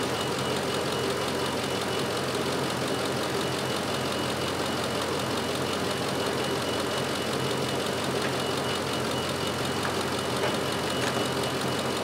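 Gasoline pickup truck engine idling steadily, heard up close under the open hood, with a faint steady high whine running through it.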